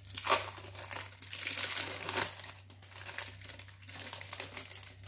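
Thin plastic wrapper of a processed cheese slice crinkling as it is peeled off by hand, an irregular crackle, over a low steady hum.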